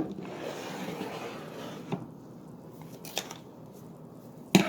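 Metal hand tools being handled and set down out of a tool pouch: four sharp clinks or knocks, the loudest near the end, over light rustling.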